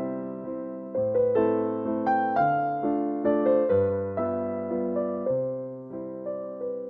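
Slow piano melody over low sustained bass notes. Each note is struck and then fades away, and new notes come in about every second or so.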